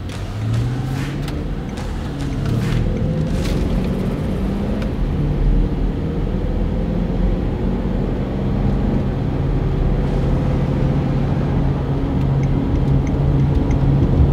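Cabin noise inside a Range Rover 4.2 supercharged V8 cruising at 55 mph: a steady low road and tyre rumble under an engine drone. The drone climbs a little in pitch over the first few seconds, then holds steady. A few sharp ticks sound in the first four seconds.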